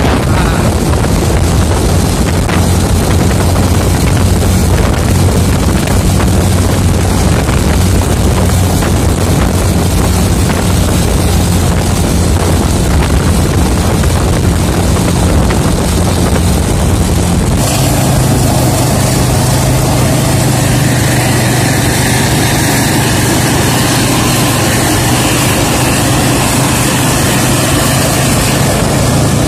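Motor vehicle on the move: a steady engine drone with tyre and wind noise. About two-thirds of the way through it cuts abruptly to a different, steadier engine hum.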